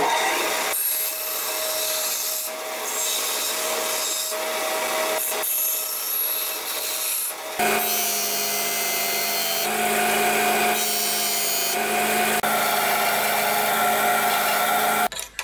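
Bandsaw cutting through an aluminum plate across a TIG weld. About seven and a half seconds in it gives way to a belt and disc sander grinding the cut aluminum face, a steadier machine sound with a hum in it.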